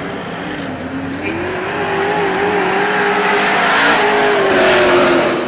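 Race car engine running, its pitch climbing about a second and a half in and then holding steady with a slight waver.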